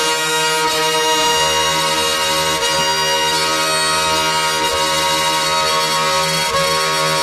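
Dense, sustained drone of many steady, overlapping tones that holds at one level, with a low hum coming in about a second and a half in.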